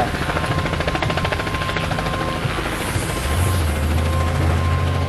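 An engine running with a fast, even chop. A deeper drone comes in about three seconds in.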